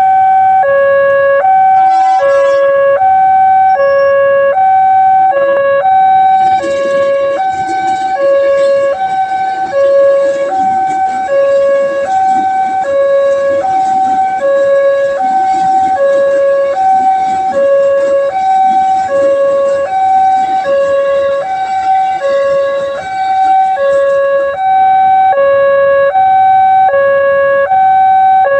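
Railway level crossing warning alarm sounding continuously: an electronic two-tone signal alternating evenly between a high and a low note, warning that a train is approaching. From about six seconds in to about twenty-four seconds, a rushing, rattling noise runs underneath it.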